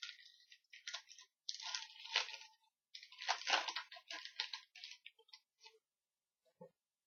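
Trading-card pack wrapper crinkling and tearing as the pack is opened, in a run of irregular crackly bursts that die away after about six seconds.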